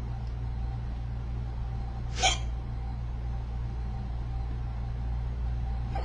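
A woman's hiccup: one short, sharp hic about two seconds in, with a fainter one at the very end, over a steady low hum.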